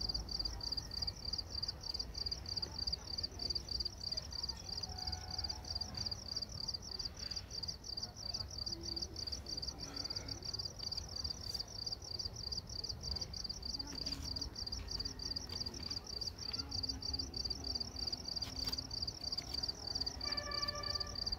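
Crickets chirping in a rapid, even pulse over a low background rumble.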